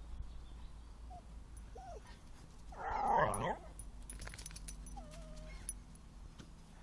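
Whippet whimpering: a few short, thin whines, with one louder, longer cry about three seconds in.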